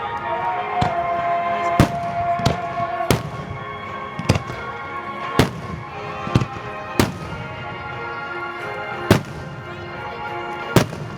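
Aerial fireworks shells bursting with sharp bangs at irregular intervals, about nine in all and roughly one every second or so, over steady background music.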